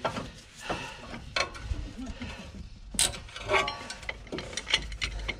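Steel C-clamp being set on a front brake caliper to push the piston back: scattered metal clicks and rattles of the clamp being handled, with one sharp click about three seconds in.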